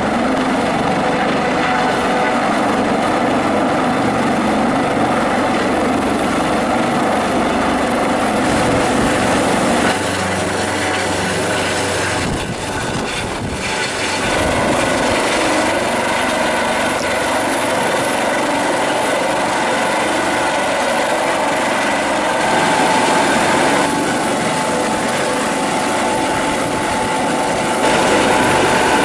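Airbus AS365 N3+ Dauphin helicopter flying low close overhead: loud, steady rotor and turbine noise. The sound shifts in level and tone a few times, with a brief dip about twelve seconds in.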